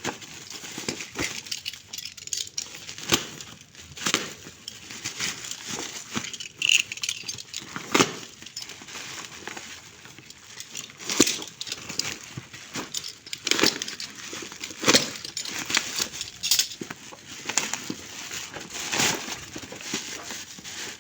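Hands unpacking a parcel: plastic packaging rustling and crinkling, with frequent sharp clicks and taps as the boxes are handled.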